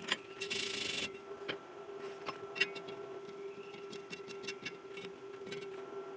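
MIG welding machine humming steadily, with a short burst of hiss about half a second in and scattered light ticks and pops.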